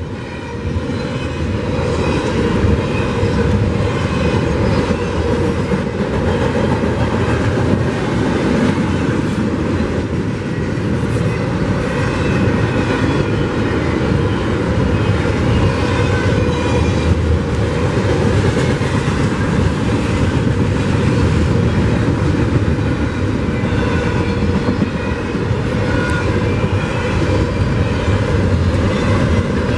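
Double-stack intermodal container train rolling past: a steady rumble of steel wheels on rail with scattered clicks, growing louder over the first couple of seconds, then holding steady.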